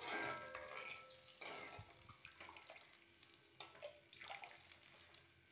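Metal spoon stirring a thick tamarind, ginger and jaggery mixture simmering in a metal pot: a few faint, wet swishes about a second apart.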